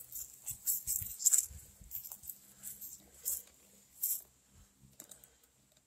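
Footsteps crunching and rustling through dry fallen leaves and grass: irregular crisp crackles that die away about four seconds in, as the walker stops.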